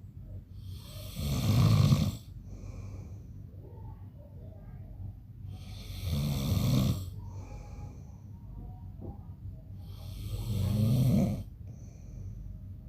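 A man snoring in his sleep: three loud snores about four and a half seconds apart, each lasting about a second, with quieter breathing between them.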